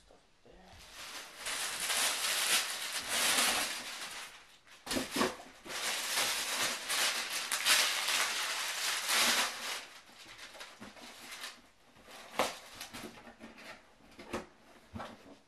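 Rustling and crinkling of packaging being handled, in two long stretches, then quieter with a couple of sharp clicks near the end.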